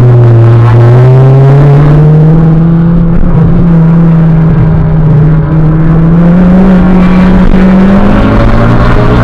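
Honda Civic Si's 2.4-litre four-cylinder engine, heard from inside the cabin under load on track. The revs dip briefly about half a second in, then climb steadily. The recording is sped up, which raises the pitch.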